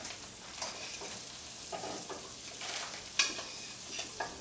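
Salmon fillets frying in butter and oil in a stainless steel pan, sizzling steadily while a spoon bastes them, with a few sharp clicks of the spoon against the pan.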